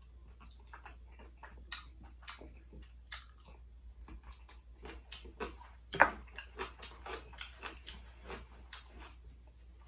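A person eating crispy fried chicken close to the microphone: irregular crunches, clicks and smacks of chewing, with the loudest crunch about six seconds in.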